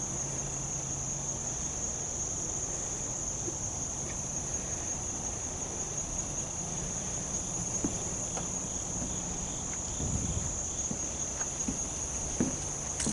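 A chorus of insects, crickets or katydids, making one steady high-pitched trill without a break. A few faint knocks come in the second half.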